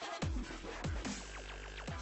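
Electronic background music with a heavy bass and a steady beat of deep kick hits.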